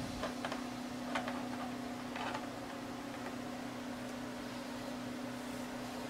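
Quiet room tone with a steady low hum, and several faint clicks and taps in the first two and a half seconds from small Arduino Nano circuit boards being handled and set down on a desk.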